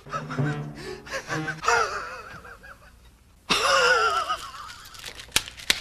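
A man's wheezing, gasping laugh with a wavering pitch, twice: a short one about one and a half seconds in, and a loud one that starts suddenly about three and a half seconds in. Two sharp clicks near the end.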